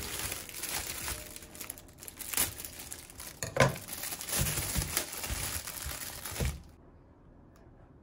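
Clear plastic produce bag crinkling as it is snipped open with kitchen scissors and the sweet potatoes are pulled out of it, with a sharp knock about three and a half seconds in. The crinkling stops about six and a half seconds in.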